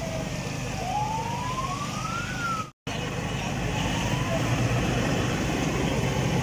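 A siren wailing, its pitch falling then rising, over a steady background of street traffic noise. The sound cuts out abruptly for a moment near the middle.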